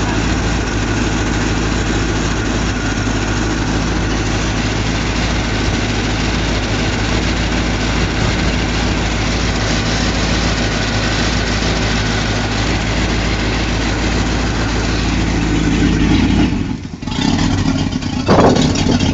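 V8 marine sterndrive engine idling steadily, on its first run after winter storage. About 17 s in the engine sound drops away, and near the end rougher, louder exhaust noise with splashing water is heard at the stern, where a garden hose supplies the drive with cooling water.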